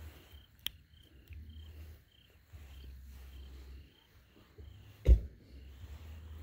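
Night insects chirping steadily, short high chirps about two a second, over a low on-and-off rumble. A sharp click comes near the start and a loud thump about five seconds in.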